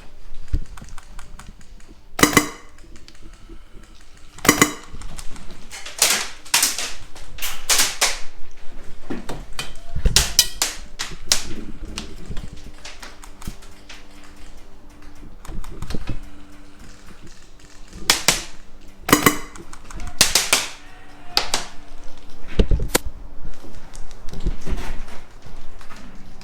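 Airsoft guns firing: sharp snapping shots at irregular intervals, some single and some in quick strings of several.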